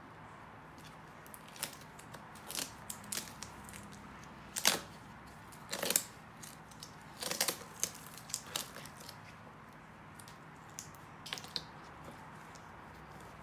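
Gloved hands handling a drysuit and its latex neck seal and pulling a cardboard ring form out of the neck: scattered rustles and crackles, loudest and busiest in the middle, with a few more near the end.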